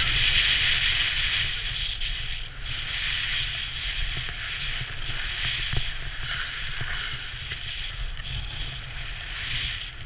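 Hiss of a rider sliding over packed snow, swelling and easing through the turns, with wind buffeting the microphone.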